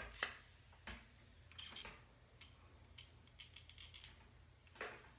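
Faint, scattered clicks and taps of a flat iron being handled and clamped on hair, with soft rustling of hair between them.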